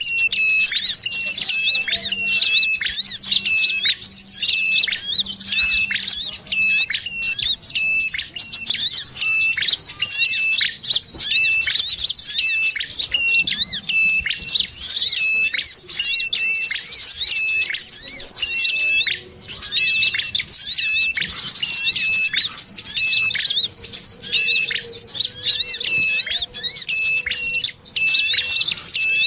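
Bird-lure recording: a dense, high-pitched chatter of small birds (sogon chatter) layered with a sharp call repeated about twice a second, mixing red-headed prenjak and brown-throated sunbird calls meant to draw small birds in.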